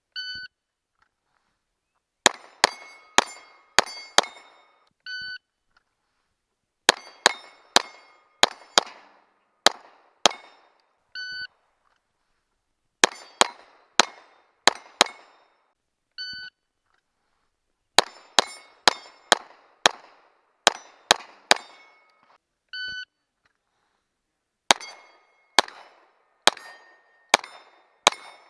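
Glock pistol fired in quick strings of five shots at steel plates, each shot followed by the ring of the struck plate. An electronic shot timer gives a short beep about two seconds before each string, five strings in all.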